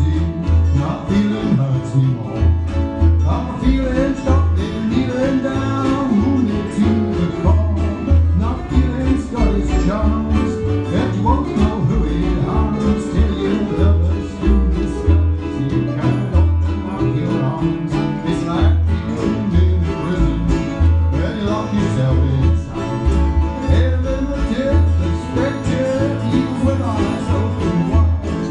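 A band playing a song live, with plucked strings over a steady pulsing bass line and a lead voice singing.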